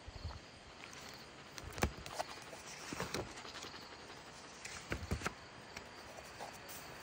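Paper pages of a spiral-bound sketchbook being handled and turned: soft rustles and light taps, the sharpest about 2, 3 and 5 seconds in, over a steady faint hiss.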